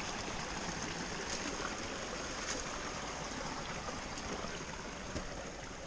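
Small forest stream running steadily over rocks and a low cascade.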